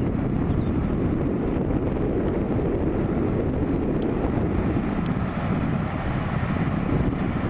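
A passing train's steady low rumble, with wind buffeting the microphone.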